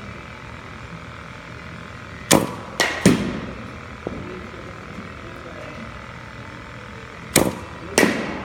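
Sharp cracks of batting practice: a bat striking pitching-machine balls, with the thwack of the machine and the ball's impact mixed in. They come in two quick clusters of two or three, about two and a half seconds in and again near the end.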